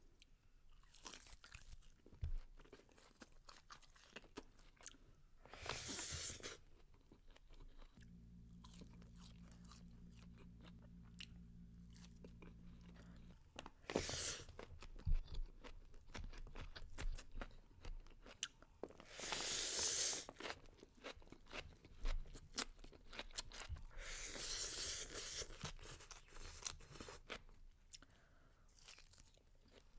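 Close-miked eating: chewing and crunching bites, with many small sharp mouth and utensil clicks and a few longer hissy stretches. A low steady hum comes in for about five seconds in the middle.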